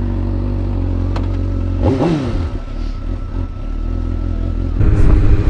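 A 2004 Suzuki GSX-R600's inline-four engine idles steadily, with one brief rev about two seconds in. Near the end the engine sound suddenly gets louder and rougher.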